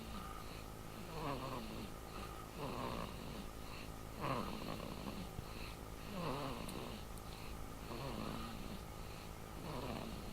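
Snoring, each breath a tone that falls in pitch, repeating about every one and a half to two seconds.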